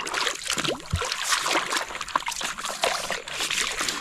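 Water splashing and trickling with many small irregular spatters, as plastic toys are washed by hand.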